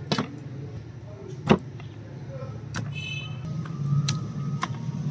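Raw chicken pieces set down on a steel tray, giving several sharp knocks, the loudest about a second and a half in. A steady low hum runs underneath.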